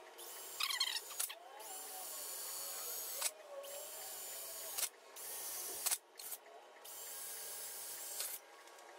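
Cordless drill boring holes through a twin electric-fan shroud panel, run in a series of short bursts of one to two seconds with brief stops between them.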